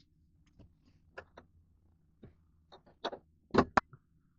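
A few light plastic clicks and taps from hands handling small parts, with two sharper clicks close together about three and a half seconds in.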